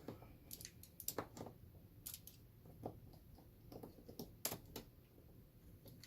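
Faint, irregular small clicks and taps: a T8 Torx screwdriver working the last small screws out of an iMac's edge and the screws being set down.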